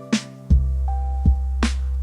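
Background chill-out music: held keyboard notes over a bass line, with a slow drum beat and a sharp snare hit about every one and a half seconds.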